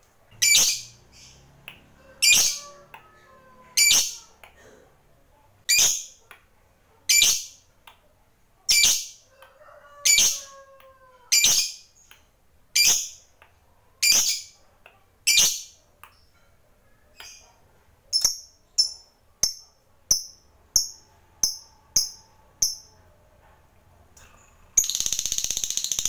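Peach-faced lovebird giving loud, shrill single chirps, about one every second and a half, then a quicker run of shorter chirps. About a second before the end, music cuts in abruptly.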